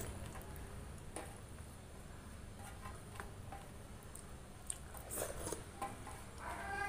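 Close-miked eating: chewing and wet squishing as rice soaked in rasam is mixed by hand on a steel plate, with scattered small clicks. A voice-like sound starts near the end.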